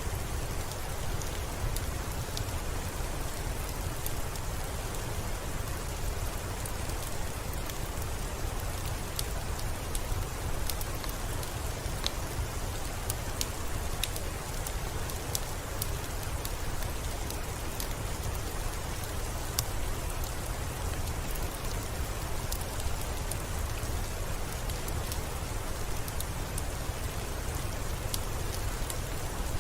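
Soft, steady rain: an even hiss with many scattered sharp ticks throughout, without pause or change.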